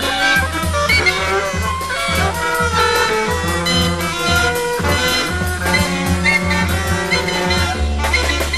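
Jazz ensemble playing live: trumpet and saxophone lines over a moving bass line and drums, with a long held low bass note near the end.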